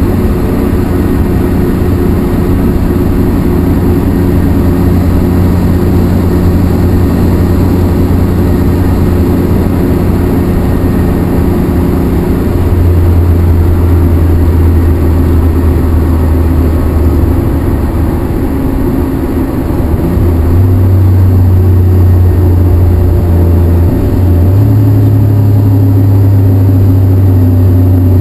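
Nissan Skyline R32 GT-R's twin-turbo RB26DETT straight-six, heard from inside the cabin, cruising at highway speed with a steady low exhaust drone through its aftermarket Mine's muffler. The engine note shifts and gets louder about 13 seconds in, and again about 20 seconds in.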